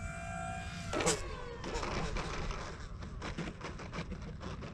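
Electric motor and propeller of an E-flite Air Tractor RC plane whining steadily. About a second in there is a sharp click, and the whine drops in pitch and fades. Irregular crackling taps follow.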